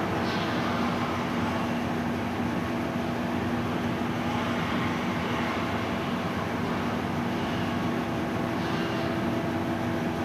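Ship's machinery running during post-repair testing: a steady drone with a constant low hum that does not change.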